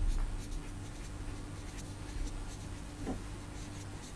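Faint scratching of a lecturer writing, a run of short strokes, over a steady low hum.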